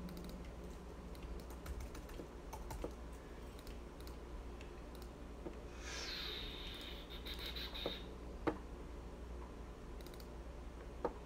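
Scattered light clicks and taps on a laptop keyboard and computer mouse, over a low steady hum. A faint high tone slides down and holds for about two seconds midway through.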